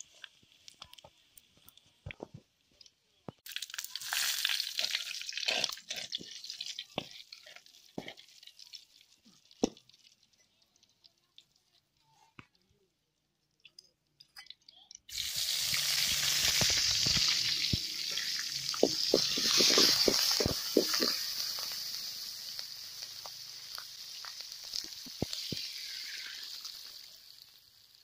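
Spices and chillies sizzling and crackling in hot oil in a pan for a tempering. After a quiet lull, a sudden loud sizzle starts about halfway through and slowly dies down.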